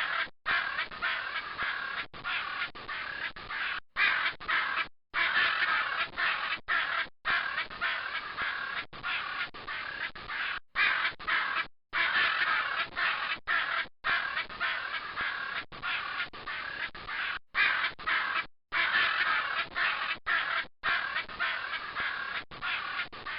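Macaws squawking: a dense run of harsh, raspy calls, broken every second or two by short, abrupt gaps.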